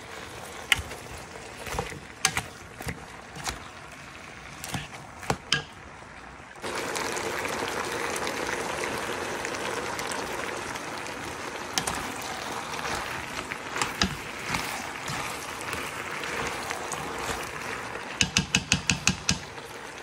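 A black cooking utensil clicks and scrapes against a stone-coated nonstick pan while vegetables are stirred. About six seconds in, a steady sizzle of vegetables stir-frying in hot oil begins and carries on. Near the end there is a quick run of clicks.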